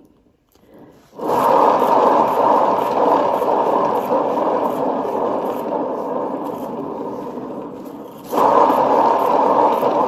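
Painting turntable spun by hand under a wet acrylic pour, its turning giving a rumbling noise that starts about a second in and fades as it slows. It is spun again about eight seconds in and the rumble comes straight back.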